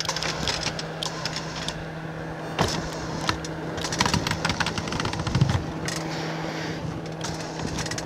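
Irregular clanks, knocks and scrapes as a heavy rooftop RV air conditioner is wrestled off a ladder-mounted lift onto the roof, over a steady low hum.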